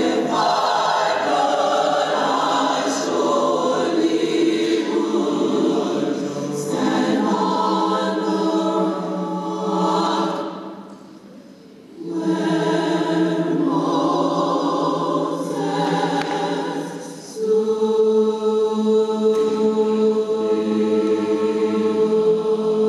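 A mixed choir of men's and women's voices singing in parts. They fall quiet briefly about halfway through, then come back in and hold a long sustained chord near the end.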